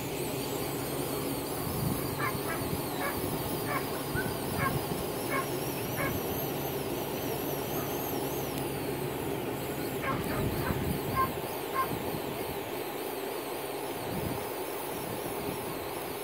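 A steady motor-like drone runs underneath. Short honking calls come in a run of about one every two-thirds of a second, starting about two seconds in, and again around ten seconds.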